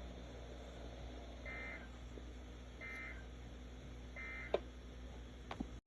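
Emergency Alert System end-of-message signal: three short data bursts of SAME digital code, about a second and a half apart, marking the end of an alert, over a low steady hum. A faint click near the end.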